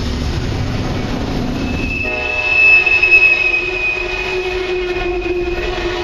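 Empty steel coal hopper cars rolling past with a low rumble; from about two seconds in a steady high-pitched squeal sets in and holds, the wheels squealing as the train rounds the curve.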